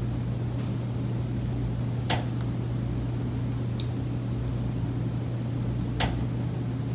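Two sharp knocks from the high-rise building's common elements, about four seconds apart, the daily recurring knocking the tenant reports, over a steady low hum.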